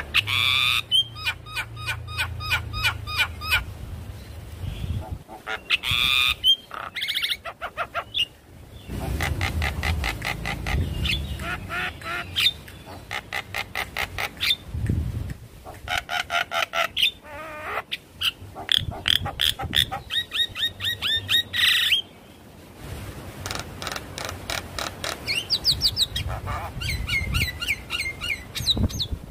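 Javan myna (jalak kebo) singing in full voice: fast rattling runs of repeated notes mixed with harsh squawks and whistled notes, broken by short pauses.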